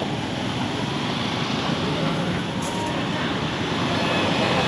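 Street traffic: motor vehicles running past with a steady low engine drone that grows a little louder near the end.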